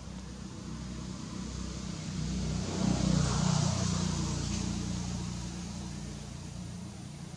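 A motor vehicle passing by: its engine and road noise swell over about two seconds, are loudest a little before the middle, then fade away.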